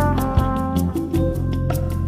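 Smooth jazz instrumental: a lead horn holds a melody note over an electric bass line, with steady cymbal ticks from programmed drums.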